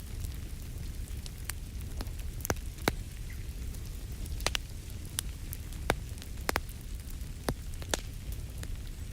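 Wood fire crackling in a fireplace: irregular sharp pops and snaps, about one a second, over a steady low rumble.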